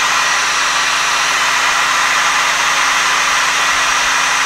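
Hand-held hair dryer running steadily on a loud, even blow with a constant motor hum, heating the adhesive around an iPad 2's screen so the glass can be pried off.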